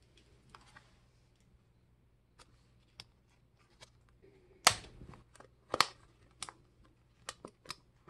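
Thin plastic deli cup lid being worked and pried off by hand: scattered sharp plastic clicks and snaps. The loudest come about halfway through, and more follow near the end.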